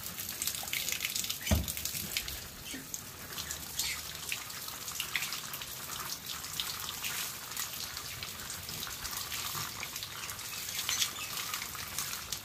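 A stream of running water splashing over hands and raw beef shank as the meat is rinsed clean: a steady, spattering hiss. A single thump sounds about one and a half seconds in.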